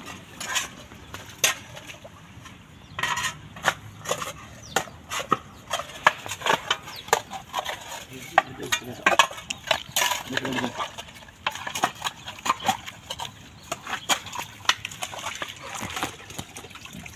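Digging tools scraping and chopping into wet, muddy soil around a water pipe, giving many irregular sharp scrapes and clicks.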